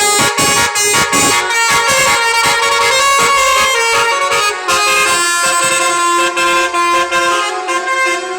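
Bus 'telolet' horn, a multi-tone air horn playing a tune of quickly changing notes with several tones sounding together, loud. From about five seconds in it holds a steadier chord.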